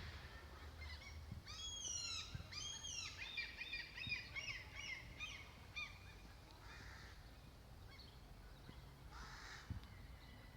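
A gull calling: two long, arching calls, then a quick run of shorter notes, over a low steady rumble.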